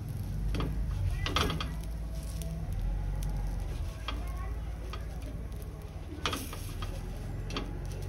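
Buttered pav buns sizzling on a hot iron tawa as they are turned and pressed down by hand, with several short knocks and scrapes of bread against the pan, over a steady low hum.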